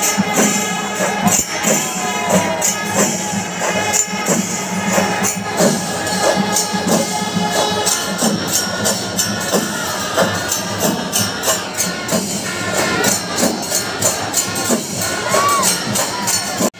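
A Kerala temple-festival melam: ilathalam hand cymbals clash rapidly and steadily over chenda drums, above the noise of a large crowd.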